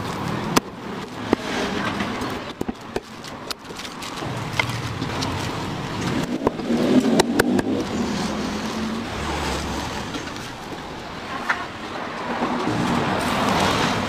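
Heavy cleaver chopping roast chicken on a wooden chopping block: sharp chops at irregular intervals, a couple coming in quick pairs, over a steady background rumble.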